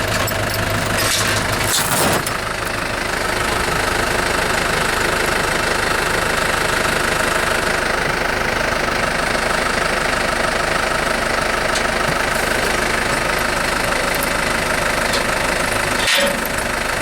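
An engine idling steadily, with a few short metallic knocks about a second in and again near the end.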